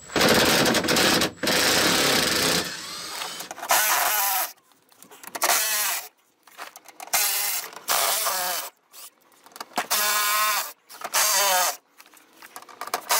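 A power tool with an 8 mm socket running in repeated short bursts, its motor whining, backing out the fasteners of the plastic under-engine splash shield.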